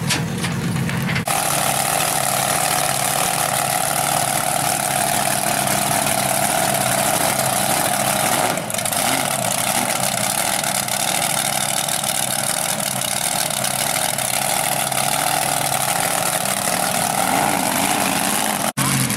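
Mud buggy's engine running steadily near idle, a low engine note with a steady whine above it, starting abruptly about a second in.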